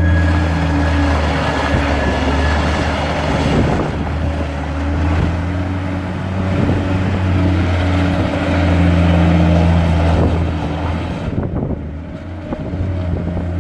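John Deere 326D skid steer's diesel engine running, its low note rising and falling slightly with load. A thin high whine fades out about three seconds in, and the engine eases off briefly near the end.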